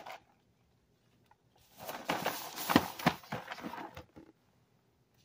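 A sealed cardboard cereal box being handled and turned over in disposable-gloved hands. There is a brief rustle at the start, then about two and a half seconds of rustling, scraping and clicking from about two seconds in.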